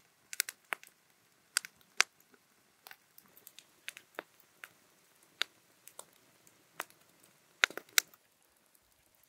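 Wood campfire crackling, with sharp irregular pops and snaps scattered through a quiet background; two of the loudest pops come close together near the end.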